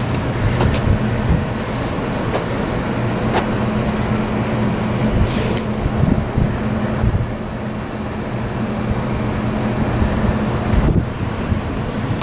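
Outdoor city ambience: wind buffeting the microphone over traffic noise and a steady low hum, with a thin, steady high-pitched tone and a few light clicks.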